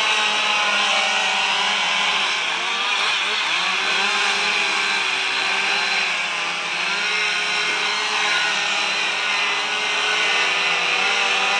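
Several petrol chainsaws running at once and cutting into oak blocks, their overlapping engine notes revving up and down.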